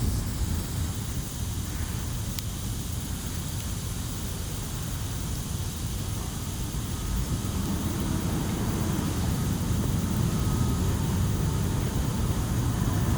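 Jet aircraft rumbling, growing louder over the second half with a faint whine appearing near the end. A single sharp click about two and a half seconds in.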